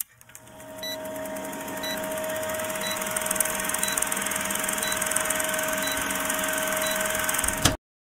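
Film-countdown intro sound effect: an old film projector running, with a steady hum and rapid ticking, and a short faint beep about once a second marking the count. It cuts off suddenly just before the end.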